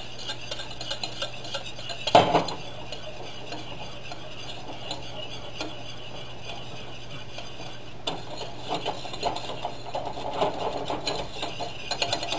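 A utensil scraping and tapping against the inside of a stainless steel saucepan as a roux with pan drippings is stirred and cooked down into gravy. One louder stroke comes about two seconds in; the stirring is quieter through the middle and busier again near the end.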